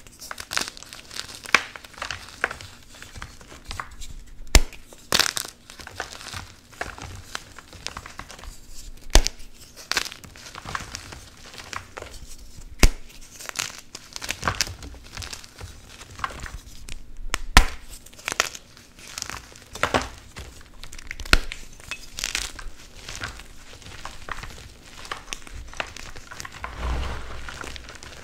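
Blocks of Plain Jane Cap gym chalk crushed and crumbled by bare hands: a continuous dry crunching and crumbling, broken by loud sharp snaps every few seconds as chunks break off.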